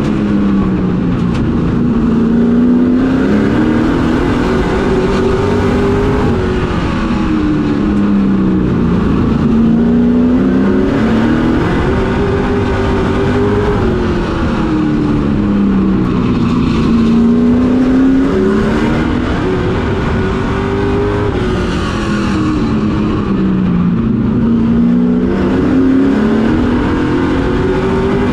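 Pro Truck race truck's engine heard from inside the cab while lapping a short oval. The revs rise and fall in a smooth repeating cycle about every seven seconds, over steady road and wind noise.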